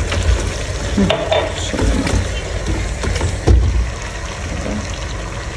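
Chicken strips tipped into a hot coated pot of peppers and stirred with a spatula: food sizzling, with the spatula scraping and knocking against the pot a few times, the loudest knock about three and a half seconds in.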